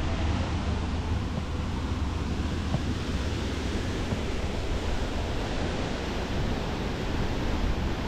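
Steady rushing noise of flowing river water, with a low wind rumble on the microphone.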